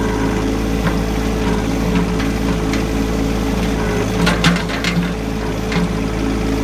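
John Deere compact tractor's diesel engine running steadily under a loader load of grass clippings. A quick cluster of sharp cracks comes about four and a half seconds in, with a few single clicks elsewhere.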